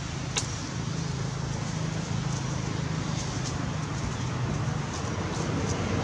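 Steady outdoor background noise with a constant low hum, a sharp click just under half a second in, and a few faint high ticks later.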